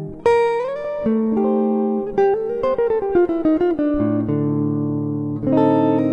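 Solo guitar playing picked single notes and chords. About a second in, a note slides up, and a quick descending run of notes comes a few seconds in, before sustained chords.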